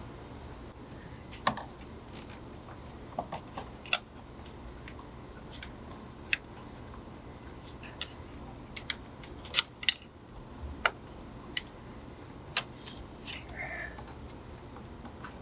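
Scattered light clicks and knocks, a dozen or so at irregular intervals, as a hand and a long metal tool work among the rubber hoses and plastic fittings of a car's engine bay, over a low steady hum.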